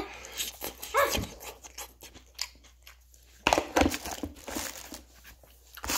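A man chewing a mouthful of noodles close to the microphone, with irregular crunching and wet mouth sounds. A short vocal sound slides down in pitch about a second in.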